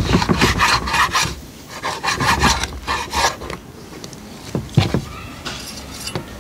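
A knife cutting lamb ribs apart along the bone, with quick repeated scraping strokes through the first few seconds. It ends with a few short, sharp strokes near the end.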